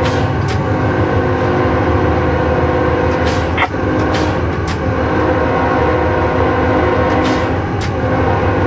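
Diesel-electric freight locomotive running, heard inside the cab as the train rolls: a steady engine drone with several sharp clicks and knocks scattered through.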